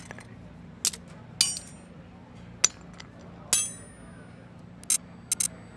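Sharp metallic clinks and clangs over a low steady hum, about seven in all; two of them ring on for a moment, one about a second and a half in and a longer one about three and a half seconds in.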